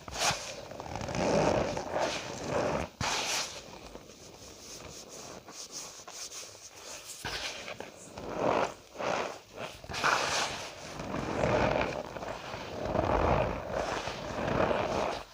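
Cornstarch powder being squeezed and crushed, giving squeaky crunching in repeated bursts, with a quieter stretch in the middle.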